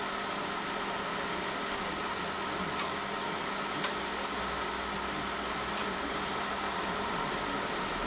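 MIG welder's wire-feed motor running steadily, pushing the welding wire through the torch cable, over the hum of the machine's cooling fan. A couple of faint ticks sound over the steady hum.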